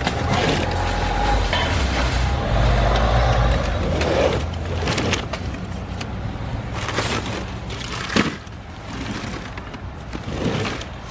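A motor vehicle's engine rumbles low for the first four seconds or so. After that come several knocks and plastic crinkles as shrink-wrapped cases of bottled water are set down and pushed into a car boot, with the sharpest knock about eight seconds in.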